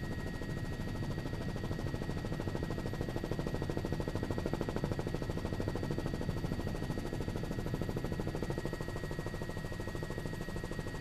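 Helicopter heard from on board: a rapid, even chop of the rotor blades over a steady high turbine whine.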